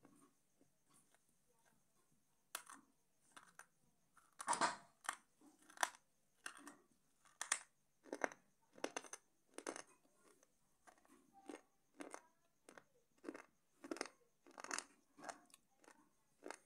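Slate pencil being chewed with the mouth closed: a steady run of crunches, about one and a half a second, starting a couple of seconds in.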